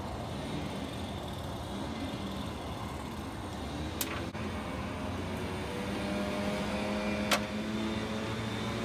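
Steady low machine hum, with two sharp clicks about four seconds and seven seconds in.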